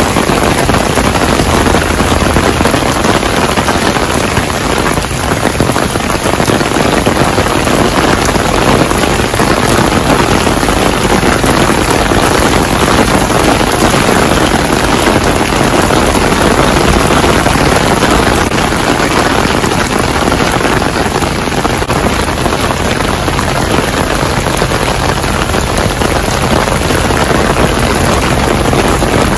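Torrential rain pouring down steadily onto a street and bridge, with the low running of cars and a bus in slow traffic on the wet road underneath.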